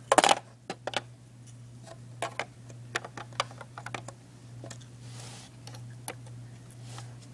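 Scattered sharp clicks and light knocks of plastic Lego pieces being handled, with a cluster of louder clicks right at the start, over a steady low hum.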